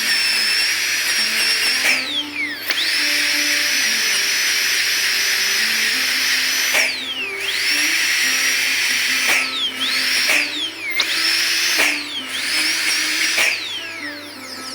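High-speed dental handpiece whining as its Arkansas stone grinds the cut edge of a steel rubber dam clamp smooth. It is let off and started again several times, its whine falling in pitch each time it spins down, with short bursts near the end.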